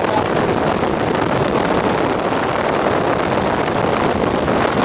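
A loud, steady rush of wind and road noise from a moving vehicle, with slight buffeting.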